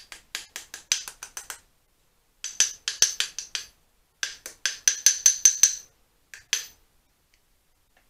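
Small hammer tapping a twisted steel hose clamp held on a steel tube: light, quick metallic taps, about six or seven a second, in three runs with short pauses, then two last taps. The clamp, bent out of shape, is being dressed back into a true circle.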